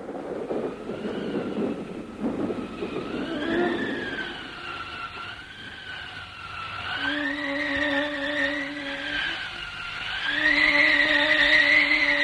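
Howling storm wind in a cartoon soundtrack: a whistling tone that keeps rising and falling, over a rushing noise in the first few seconds. From about seven seconds in, low held notes join it.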